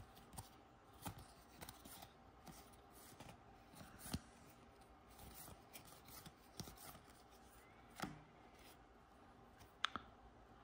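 Faint clicks and rubbing of glossy trading cards being slid one at a time off a stack in the hands, with a few sharper card snaps.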